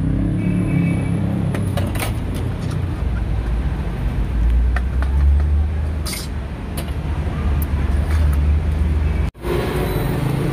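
Road traffic passing on a city street, a steady low rumble with a few light clicks over it. The sound drops out briefly near the end.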